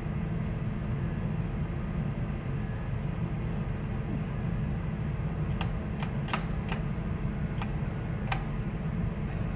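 Steady low mechanical hum of background machinery, with a handful of sharp clicks in the second half.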